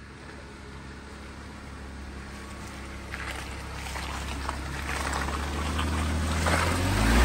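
Off-road 4x4's engine running with a low, steady hum that grows steadily louder, loudest near the end.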